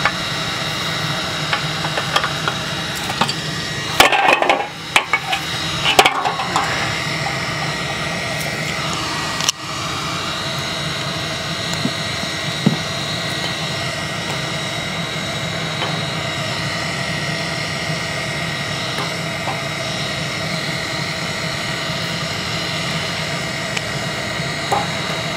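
A forge's air blower running with a steady hum and whine. Around four and six seconds in, clattering metal knocks as cast aluminum ingots are knocked out of the metal mold and handled with pliers.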